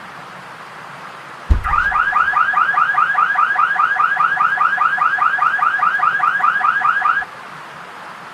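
Electronic alarm-like chirping: a rapid, even run of rising chirps, about five or six a second. It starts with a thump about a second and a half in and cuts off suddenly about six seconds later, over a steady hiss.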